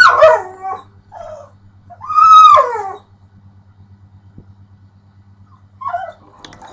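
Pit bull dog making weird whining, howl-like vocal noises: two loud calls that rise and fall in pitch, one at the start and one about two seconds in, then a short quieter one near the end. A faint steady low hum runs underneath.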